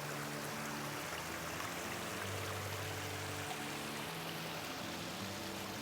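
Steady rushing noise, like running water, under soft background music made of held low notes that change every second or so.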